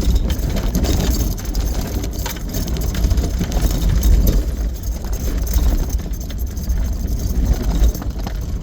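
Vehicle cabin noise on a rough dirt road: a steady low rumble of engine and tyres, with loose items rattling and knocking over the bumps.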